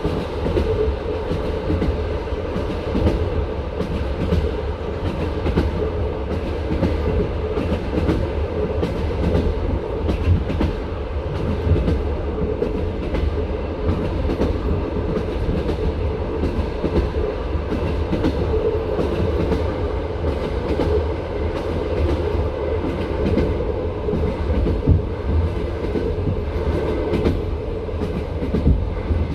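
Wheels of a passenger railway carriage clattering over the track at running speed, heard from inside the carriage: a steady rumble with frequent rhythmic clicks.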